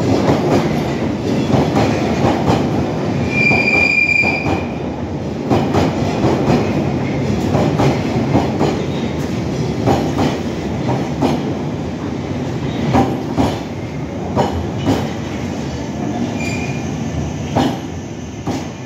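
London Underground 1972 Stock tube train running into the platform, a steady rumble broken by many irregular wheel clicks and knocks over the track. There is a short high wheel squeal about three and a half seconds in and a fainter one near the end, and the sound fades slowly as the train slows.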